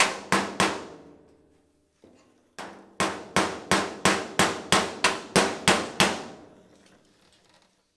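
Hand hammer striking steel to drive a part into place at the lower corner of an old car's body panel: three blows, a pause with one light tap, then a steady run of about a dozen blows, roughly three a second. Each blow rings briefly with a metallic tone.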